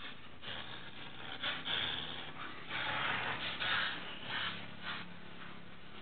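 A dog pulling and thrashing in a game of tug of war: a run of rough, irregular noisy bursts, loudest about three to four seconds in.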